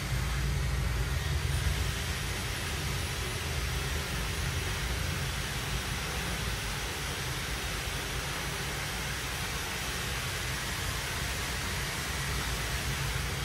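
Steady background noise: an even hiss with a strong low rumble underneath, no distinct events.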